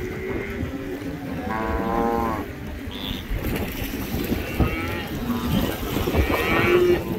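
Cattle mooing and bawling repeatedly: several separate calls, the longest and loudest about two seconds in, others near the end.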